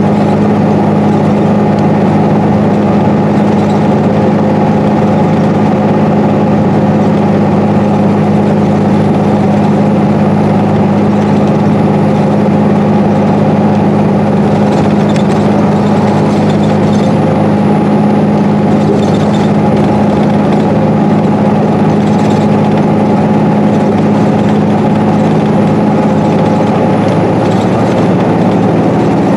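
Interior of a 2012 Gillig BRT hybrid bus cruising at highway speed: its Cummins ISB6.7 diesel and Allison H 40 EP hybrid drive give a steady low drone mixed with road noise. A few light rattles come through about halfway through.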